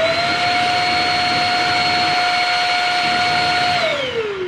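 Shark Rocket stick vacuum switched on: its motor spins up to a steady high-pitched whine over a rush of air. Near the end it is switched off and the whine falls in pitch as the motor winds down.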